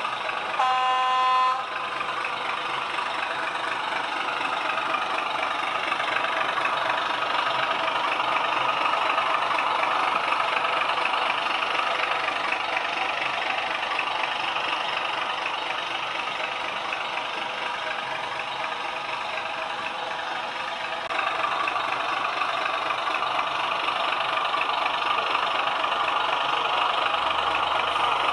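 Sound decoder of a Roco H0 model ČSD T752 diesel locomotive giving a short horn toot about a second in, then playing its diesel engine sound steadily through the model's small speaker. The engine sound gets louder about two-thirds of the way through.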